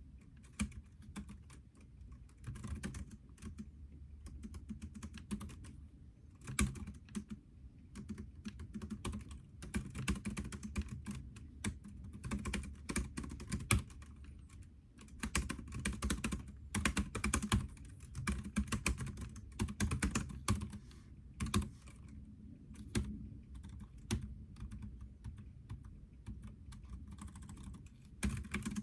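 Typing on a computer keyboard: runs of rapid key clicks with short pauses between them.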